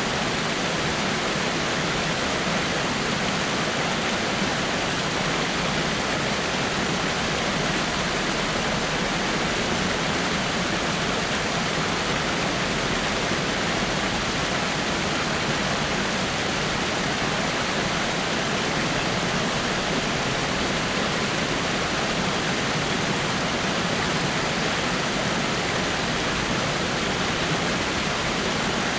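Water from a rock waterfall falling and splashing steadily, an even rushing hiss.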